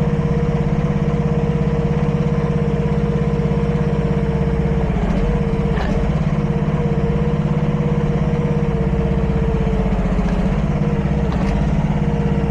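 Mini excavator's 26-horsepower single gasoline engine running steadily under throttle, with a steady higher tone over it. The pitch dips briefly a few times.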